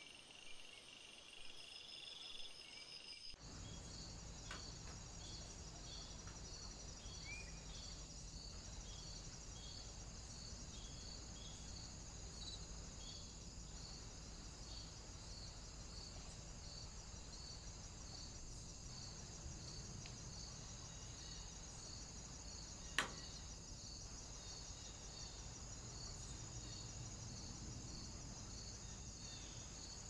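Faint outdoor ambience of crickets chirping high in a steady, even pulse about twice a second over a low hum and hiss. The background changes abruptly about three seconds in, and there is one sharp click near 23 seconds.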